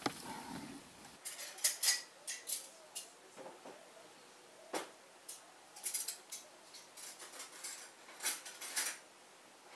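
Antlers of two sparring deer bucks clacking and rattling together in irregular sharp clicks, some single and some in quick clusters, starting about a second in.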